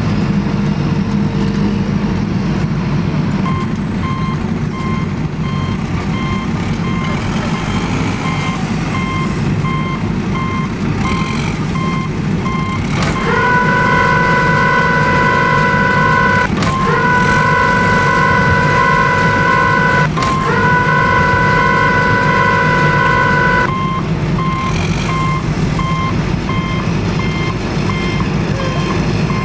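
Heavy truck sounds: a steady engine rumble with a regular reversing beeper. Around the middle, three long steady tones of about three seconds each sound back to back.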